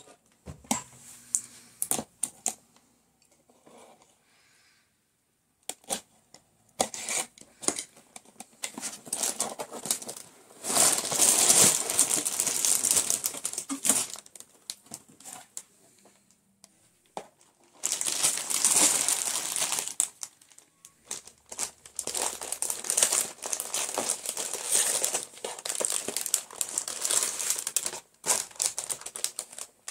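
Clear plastic packaging of a Lego set crinkling and crackling as it is handled: the wrapping film and bags of bricks. It comes in irregular stretches with short pauses, the loudest around the middle.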